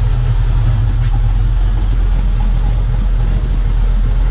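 Holden Commodore's engine idling steadily with a deep, even rumble after being brought back to life from more than a year sitting unused.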